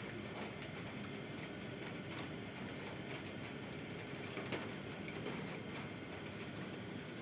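Steady rain over city background noise, a low even hum of distant traffic beneath it, with a few faint taps from drips.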